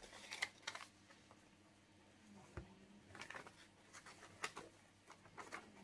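Near silence broken by a few faint rustles and light taps, spread through, from hands handling envelopes and small plastic bags of diamond painting drills on a table.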